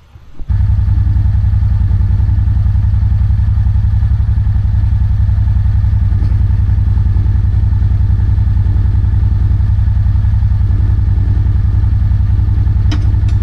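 Side-by-side utility vehicle's engine running steadily, coming in suddenly about half a second in and holding an even, unchanging pitch.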